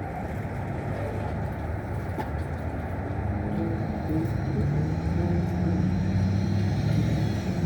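A motor vehicle's engine running, a steady hum that grows louder about three seconds in over a background of traffic noise.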